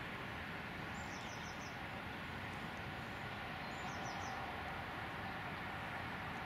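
A small bird singing a short high phrase of a few quick falling notes, three times about three seconds apart, over a steady outdoor hiss.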